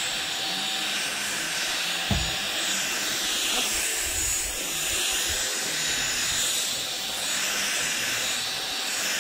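LG CordZero cordless stick vacuum running steadily with its bristle carpet brush head on a rug, with one short thump about two seconds in.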